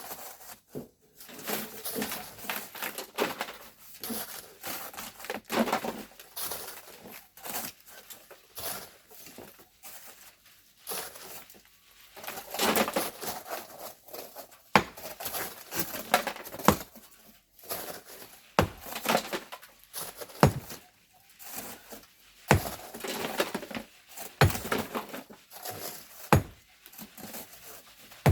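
Hand tools scraping and striking volcanic sand and stone in irregular strokes, with gritty rushes of sand between sharper knocks.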